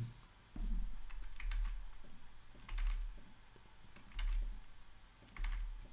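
Typing on a computer keyboard: short runs of keystroke clicks with pauses between them.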